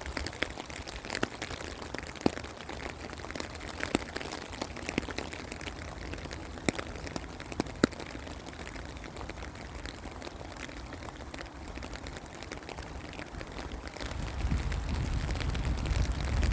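Rain falling steadily, with scattered louder drop impacts. About two seconds before the end, a low rumble of wind on the microphone builds up.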